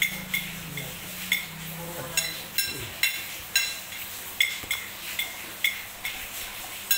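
Light clinks and taps of plastic toy cooking utensils and dishes, short and irregular, roughly two a second.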